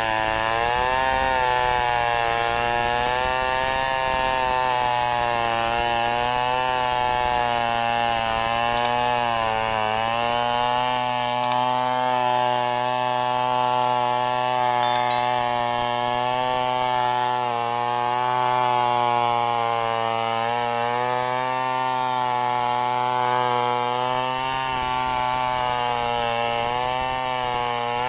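Chainsaw running at high revs while ripping lengthwise through a log to cut a slab, its engine note wavering and dipping a little as the cut loads it.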